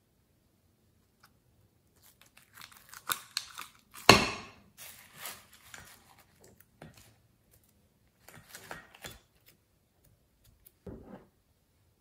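Sticky crackling and crunching of slime and foam beads as a slime-coated clay board is pressed onto foam beads and glitter in a glass tray, in several short irregular bursts, the loudest a sharp one about four seconds in. A duller squelch follows near the end.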